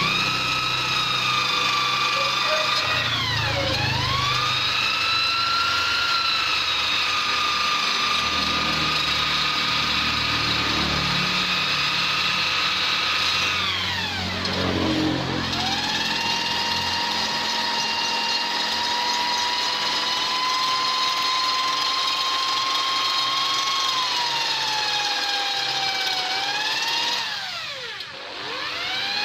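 High-speed die grinder with a rotary burr bit whining steadily as it grinds and shapes a Vespa engine's ports. Its pitch sags and climbs back three times as the bit is pressed into the metal or lifted off.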